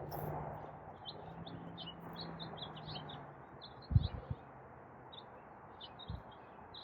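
Small birds chirping repeatedly in short high notes, with a steady low hum over the first three seconds and a short low thump about four seconds in.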